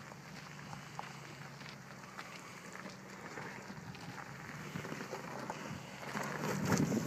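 Footsteps crunching on a dirt and rock trail over the low, steady running of a Volkswagen Touareg's V8 engine as the SUV crawls over ruts at walking pace; the sound grows louder near the end.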